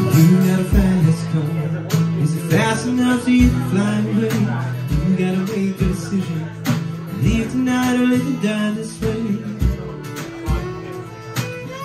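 Live acoustic band playing: strummed acoustic guitar over a drum beat on a small kit, with a violin and a man singing.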